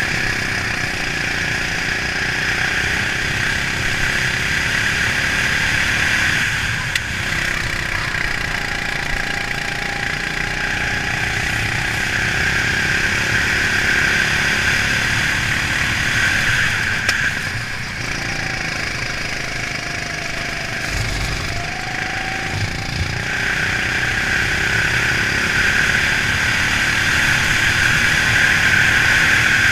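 Go-kart engine running flat out on track, the note and its noise dipping briefly a few times as the driver lifts for corners, then climbing again on the straights.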